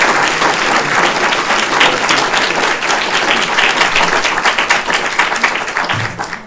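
Audience applauding, a dense patter of many hands clapping, easing off near the end.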